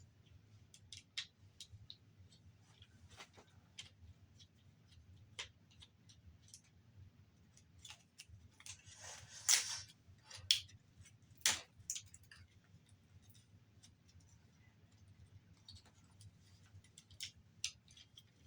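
Scattered light clicks and taps of small plastic and metal parts being handled and prised apart while a Blu-ray player is taken apart. A short scraping rustle comes about nine seconds in, followed by two sharper snaps.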